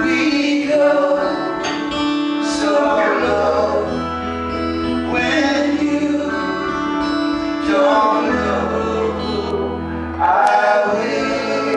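Live acoustic band: several men singing in close harmony over strummed acoustic guitar, with low bass notes held underneath for several seconds at a time.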